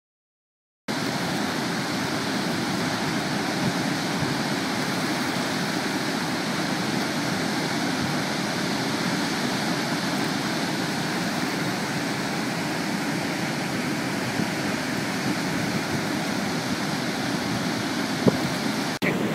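Water rushing over a dam's spillway gates and churning into the river below, a steady unbroken roar that starts after about a second of silence. There is a short click near the end.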